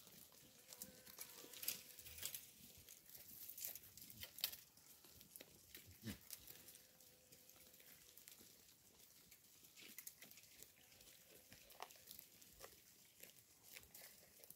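Goats grazing up close, biting off and tearing fresh grass with many quick, irregular crisp clicks and rips, busiest in the first few seconds. Faint throughout.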